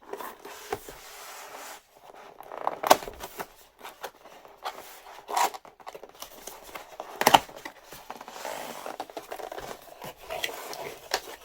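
A package being opened by hand: packaging rustling, scraping and tearing, broken by a few sharp knocks, the loudest about three and seven seconds in.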